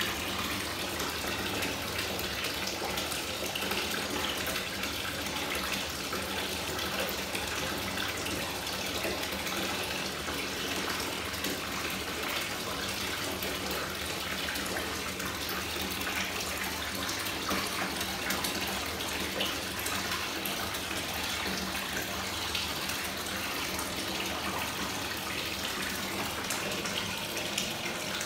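Bath tap running steadily, pouring water into a bathtub that is already full.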